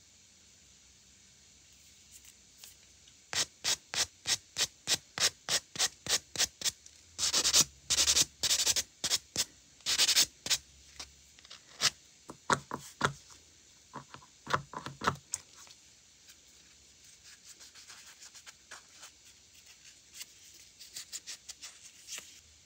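Natural fingernails being filed or buffed, with quick back-and-forth scraping strokes about three a second in several runs. The strokes turn fainter near the end.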